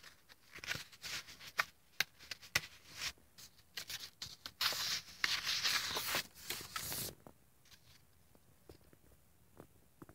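Stiff, painted and collaged paper pages of a spiral-bound art journal being handled: scattered paper ticks and crinkles, then a louder rustle as a page is turned over from about four and a half to seven seconds in.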